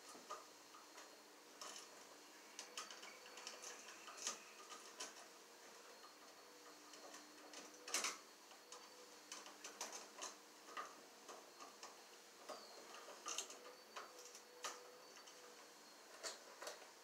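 Quiet, irregular small clicks and ticks of hands working wires into an electrical box and fitting a wire nut, the sharpest click about eight seconds in.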